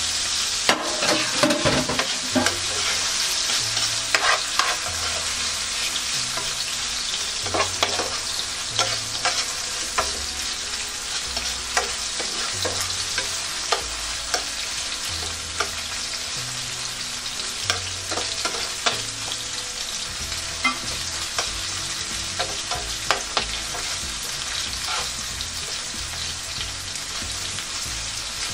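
Onion and garlic frying in hot oil in a pan, a steady sizzle that is loudest in the first few seconds and eases slightly after, while being stirred with a utensil that clicks and scrapes irregularly against the pan.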